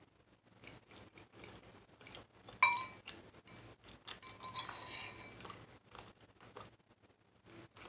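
Metal utensil clinking and scraping against a ceramic bowl while eating, with small scattered clicks and one loud ringing clink about two and a half seconds in.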